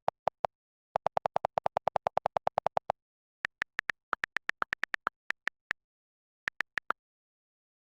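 A series of short electronic pips: a fast run of about ten a second, then slower, higher-pitched pips, with dead silence between them.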